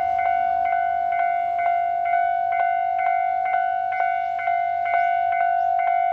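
Japanese railway level-crossing warning bell ringing steadily, about two strikes a second, each ringing into the next at one pitch: the crossing is signalling an approaching train.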